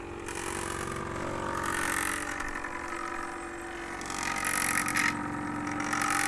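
Three Arduino-driven stepper motors turning the roller inductor and variable capacitors of a Murch 2000 antenna tuner, running the tuner to its 40-meter preset. They make a steady whining hum of several tones that grows brighter and louder for short spells, about two seconds in, around four and a half seconds in, and near the end.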